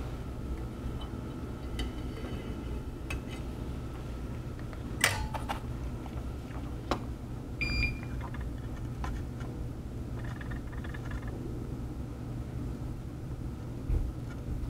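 Steady low electrical hum from the soldering bench, with a few light clicks of metal tools on the board and one short high beep about eight seconds in.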